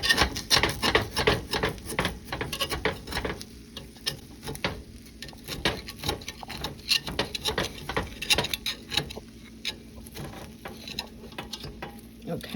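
Kitchen handling noise: rapid, irregular scraping and crackling, busiest in the first three and a half seconds and then thinning to scattered scrapes and clicks.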